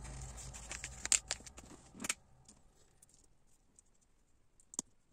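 Small plastic LEGO pieces clicking and clattering as they are handled: a flurry of sharp clicks over about the first two seconds, then quiet apart from one more click near the end. Background music fades out at the start.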